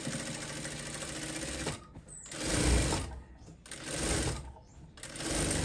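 Sewing machine stitching a curved neckline seam in stops and starts: one run of nearly two seconds, then three shorter runs with brief pauses between them.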